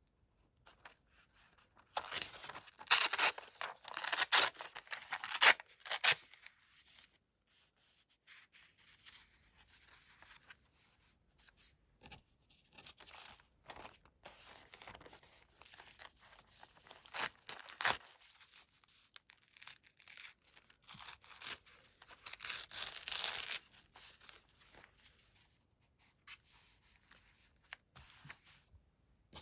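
Paper being torn and rustled by hand: two spells of tearing noise, a few seconds in and again about two-thirds through, with scattered light rustles and taps of paper between.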